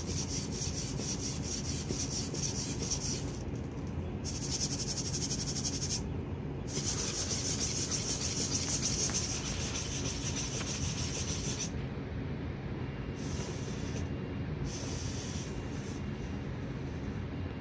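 Leg servo motors of a SpotMicro quadruped robot dog whirring and buzzing as it walks and shifts its legs. The sound comes in stretches of a few seconds broken by short pauses, over a steady low hum.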